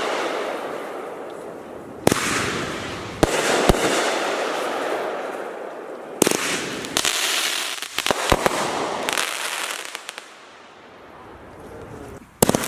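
Aerial fireworks going off: sharp bangs at uneven intervals, each followed by a fading crackling hiss.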